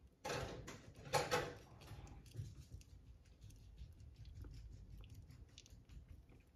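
Chihuahua puppies play-wrestling and mouthing each other on fleece bedding: two louder scuffling bursts within the first second and a half, then soft rustling with small wet mouthing clicks.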